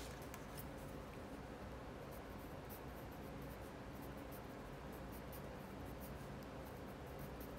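Colored pencil scratching on paper in many short strokes as a drawing is colored in, over a faint steady hum.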